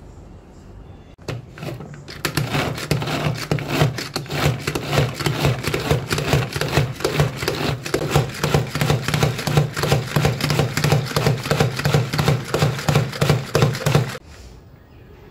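Small food chopper chopping garlic, red chillies and ginger in lemon juice: its blades spin and clatter on the pieces in a rapid, pulsing run of about twelve seconds that stops suddenly near the end.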